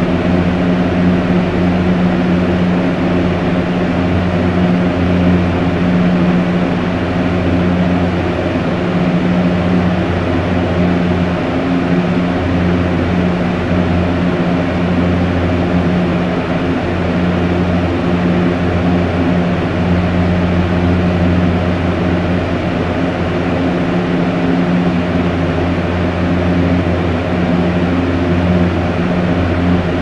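Strong electric fan running steadily: an even rush of air over a low motor hum.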